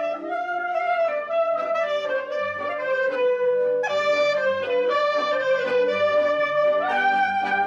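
Klezmer clarinet melody of long, bending notes, played over a rhythmic ensemble accompaniment of accordion and plucked strings.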